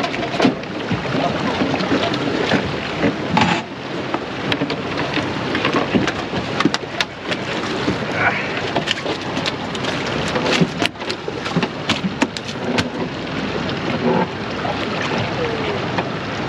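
A steady rush of wind and water noise, broken by many scattered clicks and knocks.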